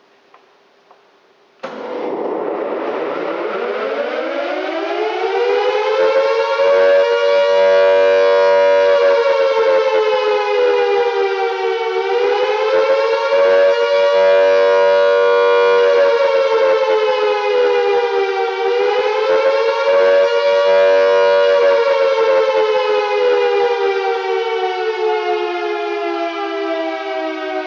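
Restored Carter-type air raid siren starting suddenly about two seconds in and winding up to full speed, its wail rising in pitch with two close tones sounding together. It holds at full speed, sagging and recovering in pitch twice, then begins slowly winding down, the pitch falling near the end.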